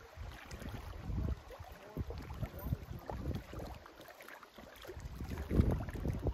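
Wind buffeting the microphone in uneven gusts, the strongest near the end, over choppy lake water washing against a rocky shore.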